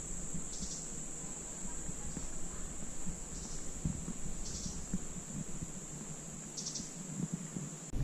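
Rainforest insects droning steadily at a high pitch, with short, lower buzzy calls breaking in four times.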